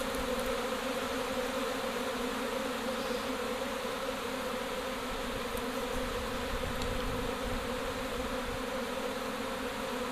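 Honey bee swarm in flight, a steady dense buzzing hum from many bees, as the swarm moves into a hive box to take it as its new home.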